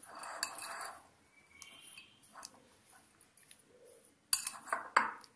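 Grated raw papaya salad being tossed by hand in a glass bowl: a soft rustle of the shreds, then a few sharp clinks against the glass near the end.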